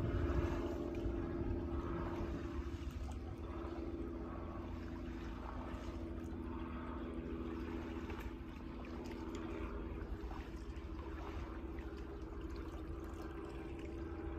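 Shallow lake water sloshing and lapping as a person wades slowly through it, over a steady low hum and rumble.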